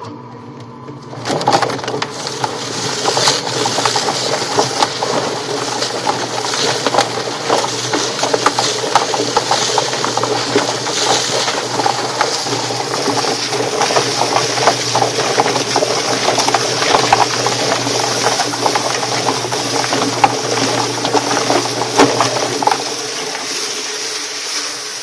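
Drum-style chicken plucker running: its motor hums steadily while the chicken tumbles against the rubber plucking fingers with a continuous loud rattling clatter, and a hose sprays water into the tub. About 23 seconds in the clatter eases, leaving the motor and the water spray.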